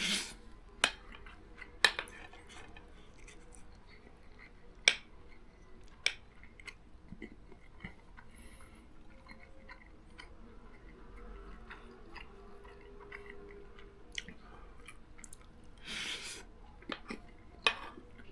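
A person eating fried rice: quiet chewing, with a few sharp clinks of a utensil against the plate, and a short breathy burst near the end.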